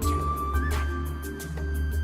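Background music: held melodic notes over a steady low bass.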